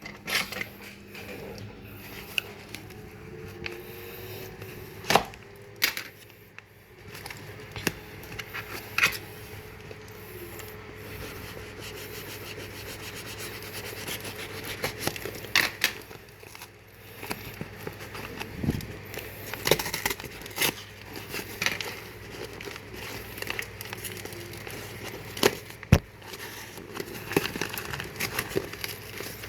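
Packaging being handled and opened by hand: crinkling and tearing, with many scattered sharp clicks and knocks.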